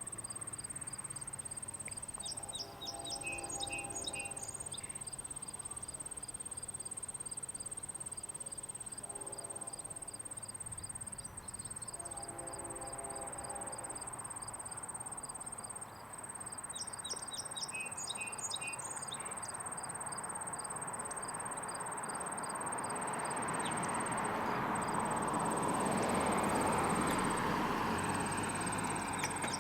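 Crickets and other insects chirping steadily, with birds calling now and then, while a distant train horn sounds three times. After that the rumble of an approaching train grows steadily louder, loudest near the end.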